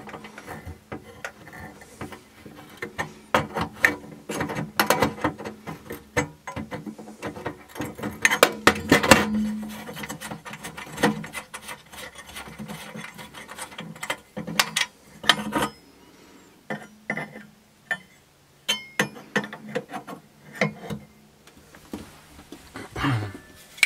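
Irregular metallic clinks, taps and knocks as a burner element on a Suburban RV cooktop is unfastened and swapped, with a wrench and the burner's gas fittings knocking against the stainless-steel stove pan. The knocks are busiest in the first ten seconds and come more sparsely after that.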